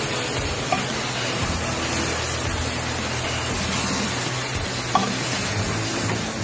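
Pork sizzling in hot oil in a nonstick pan as a wooden spatula stirs and turns it, with two short knocks of the spatula against the pan, one shortly after the start and one about five seconds in.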